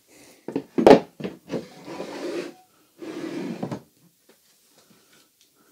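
Wooden drawers being slid into the compartments of a small wooden box: a few knocks, the loudest about a second in, as drawers are set in, then two longer scraping slides of wood on wood.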